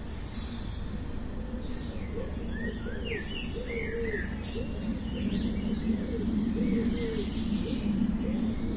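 Birds calling outdoors in winter: a few short, high chirps in the first half, and a run of low, repeated arching notes about one to two a second that grow louder over the second half, over a steady low background rumble.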